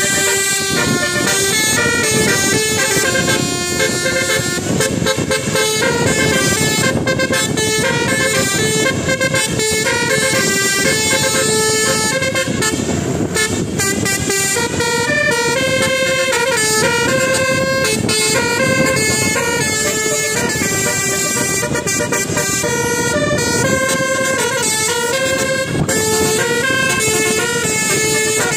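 A bus's telolet horn, the multi-tone musical horn of Indonesian buses, plays a quick melody of stepped notes without a break, over a steady low rumble.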